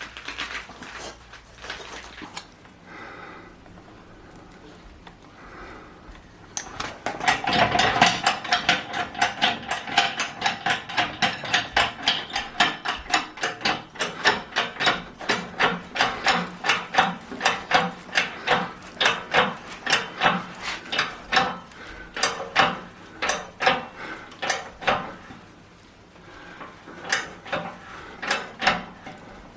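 Hammer blows on metal, about three a second, each with a short metallic ring. They start a few seconds in, pause briefly near the end and then resume.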